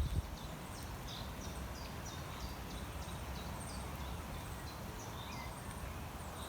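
A songbird giving a run of short, high, down-slurred chirps, about two a second, over a steady low background noise.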